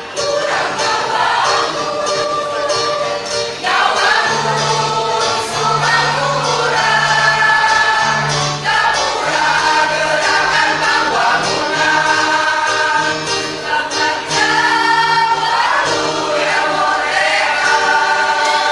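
A choir of adult teachers singing a song in held notes, over steady low notes.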